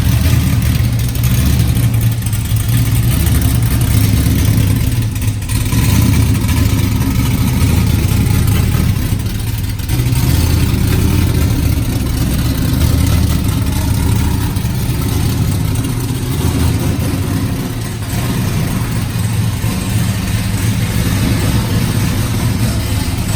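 A car engine running steadily with a deep, even low-end sound and no sharp changes in pitch.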